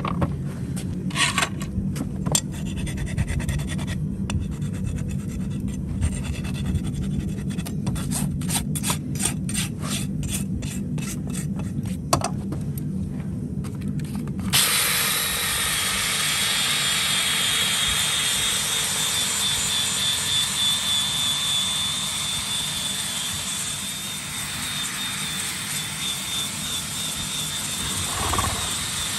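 Farrier's rasp drawn across a hoof in quick repeated strokes. About halfway through, a power tool cuts in and runs steadily with a high whine.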